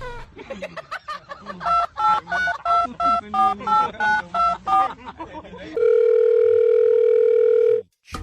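Telephone touch-tone keypad beeps, about a dozen quick two-tone presses, followed near the end by a steady telephone tone held for about two seconds that cuts off suddenly.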